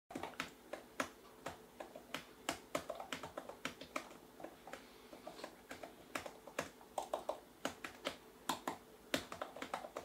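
Typing on a tablet's keyboard case: irregular key clicks, several a second, over a faint steady hum.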